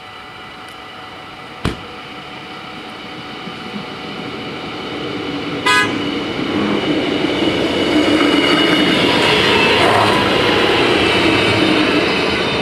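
Level-crossing bells ringing steadily as an Arriva GTW diesel railcar approaches, its engine and rolling noise growing louder and peaking near the end. About two seconds in there is a single sharp knock, and about halfway through a short horn toot.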